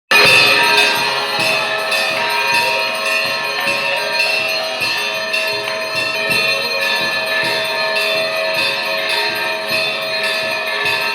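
Temple bells ringing continuously with metallic jingling, the bell-ringing of the mangala aarti, the pre-dawn worship.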